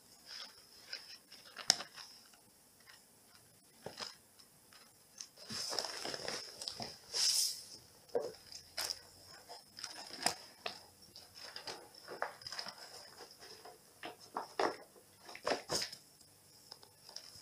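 Cat clawing and digging at the edge of a rug on a wooden floor, after a plastic toy hidden underneath: irregular scraping and rustling with scattered claw clicks, and a longer stretch of rustling about six to seven seconds in.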